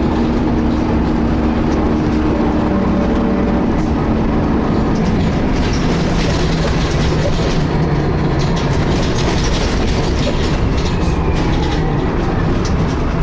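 Inside a moving DAF-chassised Alexander ALX300 single-deck bus: steady engine and road noise with rattling from the body, and a whining tone that slowly drifts in pitch. The uploader likens the whine to a cooling fan but does not know its cause.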